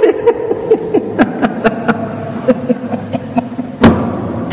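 Wedding guests murmuring and chuckling, with scattered sharp clicks and one louder knock near the end.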